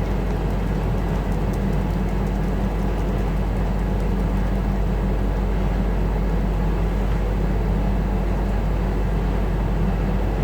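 Steady low hum with a constant hiss of background noise, and a few faint clicks in the first seconds.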